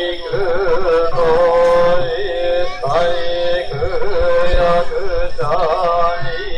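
Music with a loud, wavering, ornamented melody, its pitch bending up and down throughout, with a few faint low thumps underneath.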